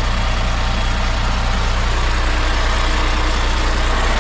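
Chinese heavy truck's diesel engine idling with a steady metallic vibrating rattle from near the gearbox. The rattle comes from a loose bolt fixing a pipe under the truck, letting the pipe vibrate.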